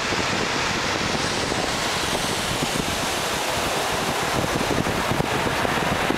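Steady rushing noise of wind buffeting the microphone, mixed with the hiss of surf on the beach.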